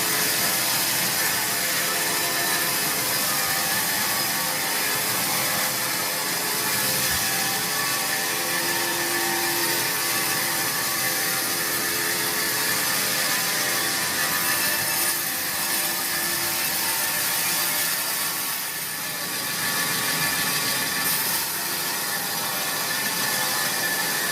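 Old sawmill saw running steadily as it cuts through a large, hard teak log, a loud continuous machine noise with several steady whining tones. It eases off briefly about three quarters of the way through.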